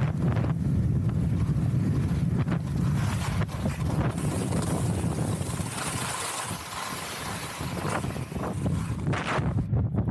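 Wind buffeting the camera microphone while skiing downhill, over the hiss of skis sliding on groomed snow, with a brighter hiss for a couple of seconds in the middle.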